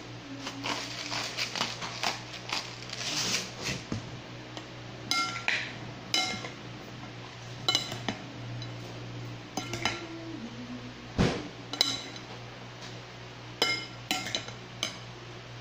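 Salt grinder being twisted, a rapid scratchy crackle for the first few seconds. Then metal salad servers toss a salad in a glass bowl, striking the glass in a series of sharp clinks that ring briefly, with one heavier knock a little past the middle.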